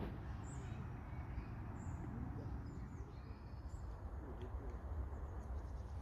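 Outdoor ambience: a steady low rumble of wind on the microphone with a few faint bird chirps.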